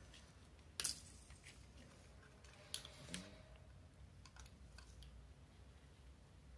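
Quiet handling sounds of a Sonoff Basic smart switch's plastic case and a wire being fitted into its terminal: a sharp click about a second in, two more clicks near the middle, and a few faint ticks after, over a low steady hum.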